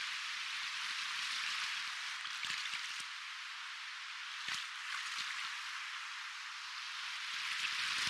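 Soft ocean waves: a steady hiss of washing water that swells a little about a second in and builds again near the end, with a few brief sharp splashes, the clearest about halfway.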